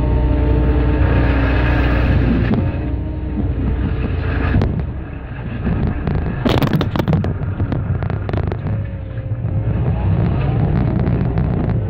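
Excavator diesel engine and hydraulics running under load while a Cat MP318 multi-processor crushes concrete away from embedded refrigeration pipe. A burst of sharp cracking and snapping comes about six and a half to seven and a half seconds in.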